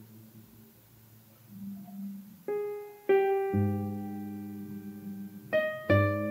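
Sparse jazz keyboard (piano) playing: a quiet, low sustained passage, then a handful of struck notes and chords from about two and a half seconds in, each left ringing.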